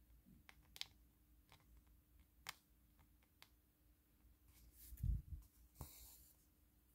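Faint, scattered small clicks and light taps of handwork on a craft canvas, with a soft thump about five seconds in.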